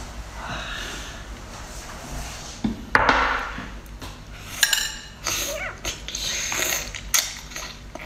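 Close-miked eating sounds of spicy sea cucumber being bitten and chewed: a run of short, sharp clicks and smacks that thickens in the second half, with one louder noisy burst about three seconds in.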